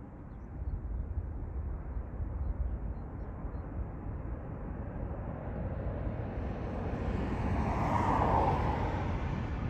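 Airbus Voyager KC3's twin Rolls-Royce Trent 700 turbofans at take-off power as the jet climbs away: a broad, low jet rumble that grows louder and brighter over the last few seconds.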